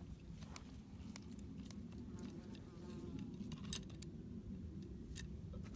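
Light, scattered metallic clicks and taps of a spanner being worked on the gear-case drain plug of a JCB 8014 CTS mini digger, over a faint low rumble.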